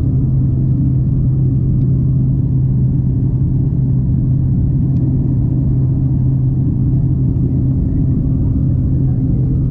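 Jump plane's engine and propeller droning steadily, heard from inside the cabin: a loud, even hum with a strong low steady tone and a fainter one above it.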